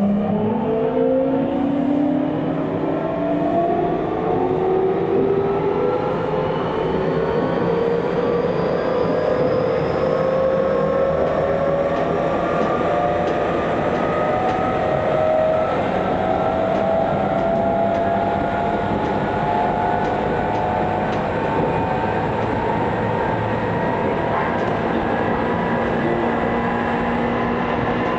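Tokyu 2000 series electric train pulling away, heard from inside the car: its traction motors whine in several tones that rise in pitch over the first ten seconds or so and then hold steady, over the continuous rumble of wheels on the rails.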